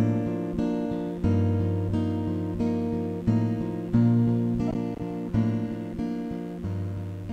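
Acoustic guitar playing a slow instrumental intro: chords struck one after another about every two-thirds of a second, each ringing on.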